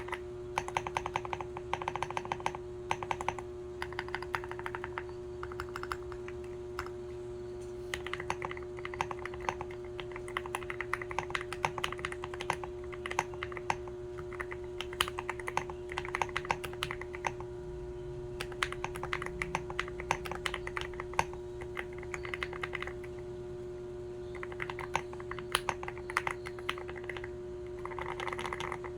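Typing on a GMK67 mechanical keyboard: quick keystrokes in runs broken by short pauses, with a deep, creamy 'thocc' sound. A faint steady hum runs underneath.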